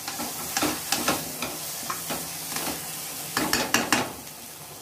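Thick masala paste sizzling in oil in a non-stick kadai while a flat metal spatula stirs and scrapes it across the pan. The paste is being fried down until the oil separates. There is a steady sizzle under several scraping strokes, with a quick run of louder scrapes a little past three seconds in.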